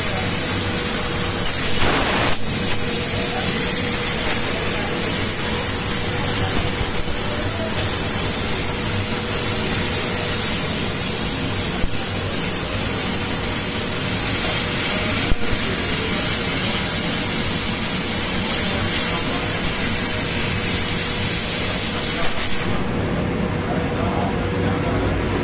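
Senfeng 3015G fiber laser cutting steel plate: a steady, loud hiss of the assist gas jetting from the cutting head's nozzle as it cuts. The hiss stops about 22 seconds in as the cut ends, leaving a lower steady machine hum.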